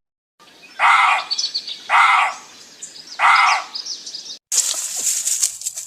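A bird gives three loud, harsh calls about a second apart, with faint chirping between them. Near the end a hissing, rattling noise cuts in abruptly.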